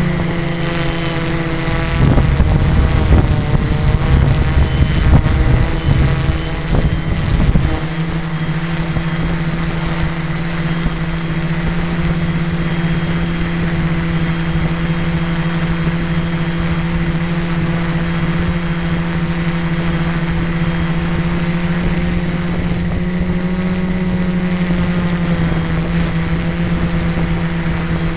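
Quadcopter's electric motors and propellers whining steadily, heard close up through the onboard camera's microphone. A rough low rumble breaks in between about two and eight seconds in, and the motor pitch rises slightly a little past three-quarters through.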